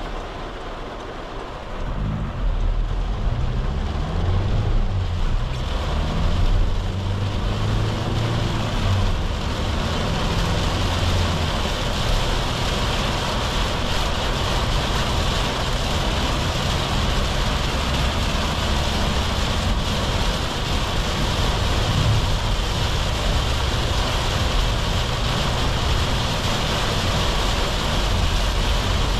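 Cabin sound of a Volkswagen Caddy's 2.0 TDI four-cylinder diesel pulling away about two seconds in and accelerating through the manual gears, the engine note stepping with each shift. As speed builds, a steady hiss of tyres on the wet road and rain on the body grows.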